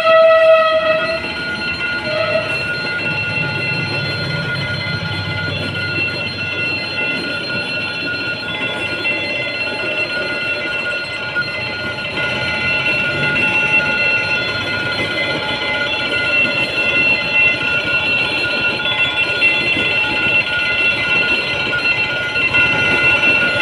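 A train passing close by, a horn sounding through about the first second and once more briefly just after. Under it the train runs past with a continuous rumble, and a steady high warning tone, like a level-crossing alarm, rings throughout.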